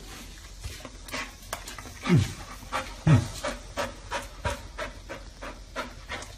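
Large white dog panting quickly and evenly, about three breaths a second. Two short, louder, low voice-like sounds falling in pitch come about two and three seconds in.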